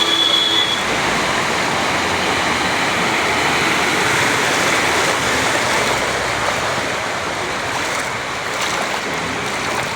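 Loud, steady rush of fast-flowing floodwater. A brief high tone sounds at the very start.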